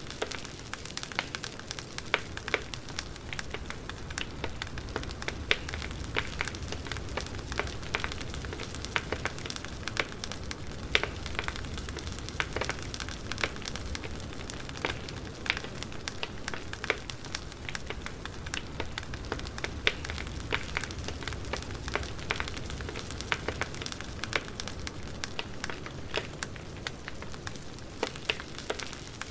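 Campfire burning steadily, with a low rumble of flames and frequent irregular sharp crackles and pops from the wood.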